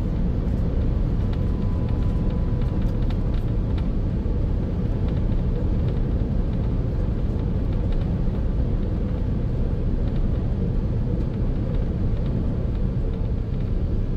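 Steady low rumble inside an Airbus A380's cabin as it taxis to the gate after landing, with its engines at taxi power. A faint steady whine is heard in the first couple of seconds.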